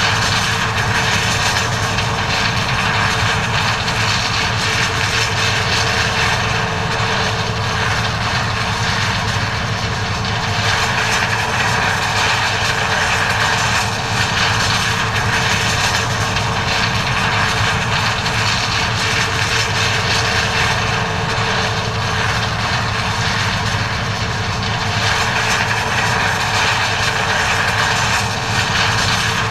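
John Deere 9400 combine running steadily under load while harvesting corn: a constant drone of its diesel engine and machinery with an even hum, no revving or pauses.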